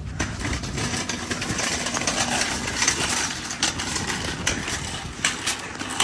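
Metal shopping cart with a man in it rolling fast over concrete, its wheels and wire basket rattling steadily, with sharp knocks now and then through the rattle.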